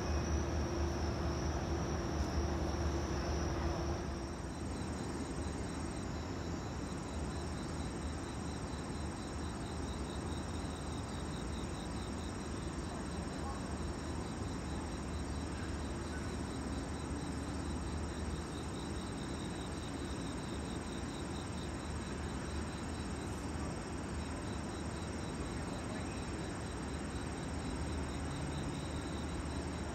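Crickets chirping in a fast, steady pulsing trill over a low steady hum. For about the first four seconds, a louder steady drone with a held mid-pitched tone comes before an abrupt change.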